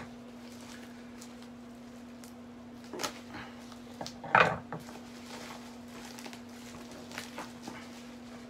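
Handling of a shipping package being opened by hand: a few short rustles and knocks of packaging, the loudest about four seconds in, over a faint steady hum.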